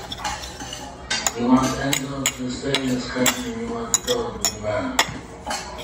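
Dishes and cutlery clinking: a string of sharp clinks, two or three a second.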